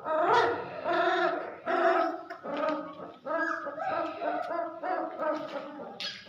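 Young puppies crying: a run of high whining whimpers and yelps, about one or two a second, several voices overlapping.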